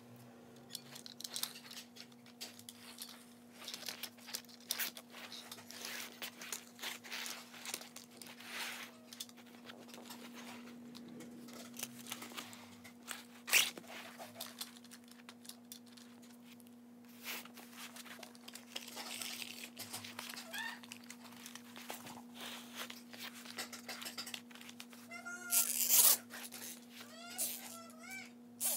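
Irregular rustling and crinkling of paper being handled, over a steady low hum. A cat meows a few times near the end.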